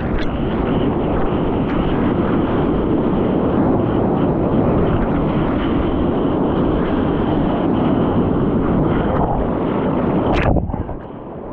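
Rushing surf water and wind noise on the microphone while a surfer rides a wave: a loud, steady rush, broken by a sharp splash about ten and a half seconds in, after which it turns quieter.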